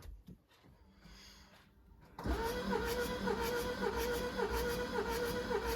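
Starter motor cranking a Jaguar 2.0-litre Ingenium diesel engine, beginning about two seconds in: a steady whine with a regular rise and fall as the cylinders come up on compression. This is a cranking compression test, and the gauge shows about 250 psi on this cylinder.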